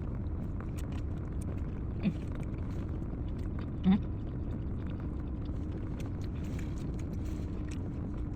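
A person chewing a big mouthful of burrito, with small wet clicks of the mouth throughout, over a steady low rumble. Two short louder hums of the voice come about two seconds and four seconds in.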